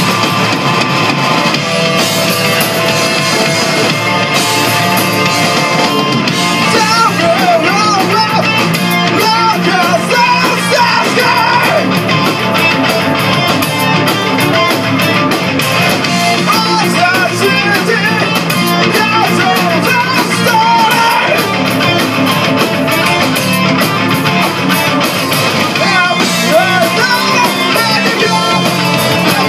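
Live rock band playing loud: electric guitars, bass guitar and drum kit, with a man singing from about seven seconds in.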